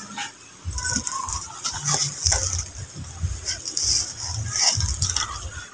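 Loose gravel and small river pebbles clattering and scraping in irregular bursts as a toddler's hands rake and shift them, over an intermittent low rumble.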